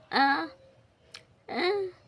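A baby babbling: two short high-pitched syllables about a second and a half apart, with a small click between them.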